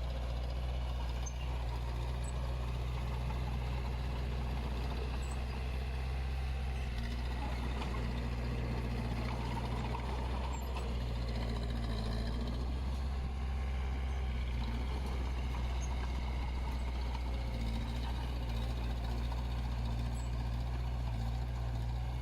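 Heavy-equipment diesel engine running steadily, with a low, even engine hum throughout.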